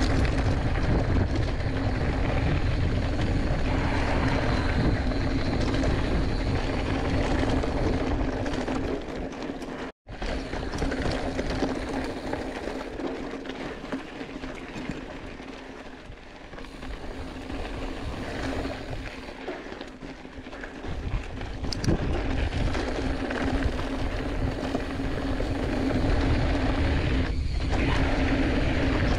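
Wind rushing over a chest-mounted action camera's microphone while a Giant Fathom 2 hardtail mountain bike rolls fast over loose gravel and rock, with tyre rumble and a steady hum from the bike. The sound cuts out for an instant about ten seconds in.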